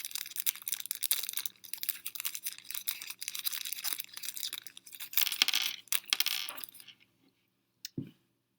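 Small hard fingerboard parts and tools clicking, clinking and scraping in quick succession while the board is being set up. The handling stops about seven seconds in, followed by a single soft knock.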